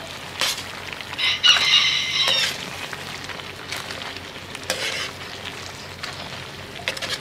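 Metal spoon stirring fried tortilla chips in chile sauce in a stainless steel pan, with a few light clinks of the spoon against the pan over a faint sizzle. About a second in, a high-pitched sound lasting about a second stands out as the loudest thing.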